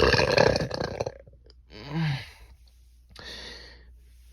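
A person burping on purpose: one long, loud, rough burp, then a shorter pitched burp about two seconds in that rises and falls, and a softer breath out near the end.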